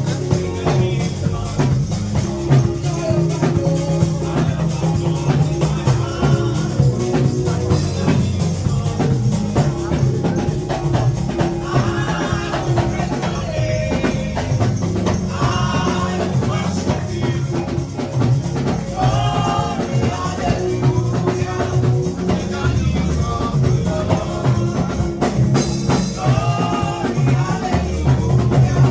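Church praise music: voices singing a melody over a steady bass line and rhythmic percussion that has a tambourine-like shake.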